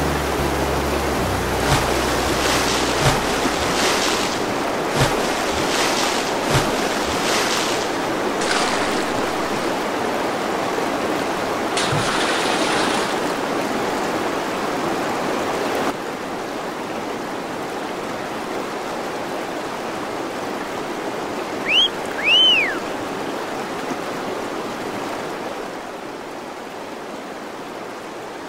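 Flowing river water rushing past a kayak, with paddle splashes and knocks against the boat in the first half. About two-thirds of the way through come two short high whistles that rise and fall.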